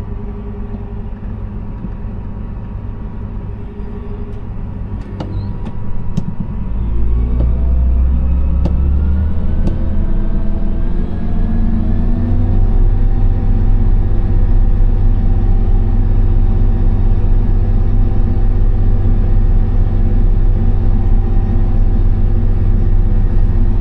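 Case IH 8120 combine's diesel engine running, then throttled up about six seconds in as the combine sets off. The rumble grows louder and a whine climbs in pitch for several seconds, then holds steady, with a few light clicks just before the throttle-up.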